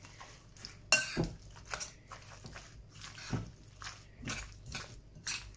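Fork mixing spinach leaves and ricotta in a bowl: soft squelching with irregular clicks and scrapes of the fork against the bowl.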